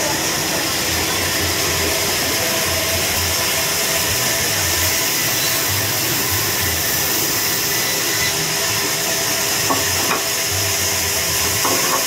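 Large vertical band saw running and ripping lengthwise through a log: a steady hiss with a faint steady hum under it.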